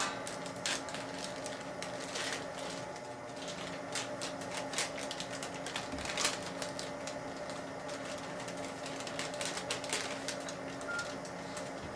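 Crinkling and clicking of a sterile syringe or needle wrapper being torn open and handled by gloved hands, in a scatter of sharp crackles, over a steady low electrical hum of equipment.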